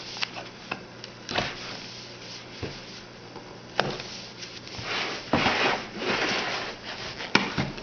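Trading-card box and pack being opened and handled: a few sharp clicks and taps, with a stretch of rustling about five to six and a half seconds in.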